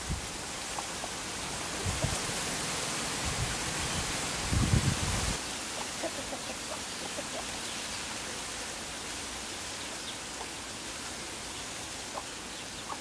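Outdoor ambience: a steady hiss that swells with a gust of wind rumbling on the microphone about two to five seconds in, with a few faint bird calls.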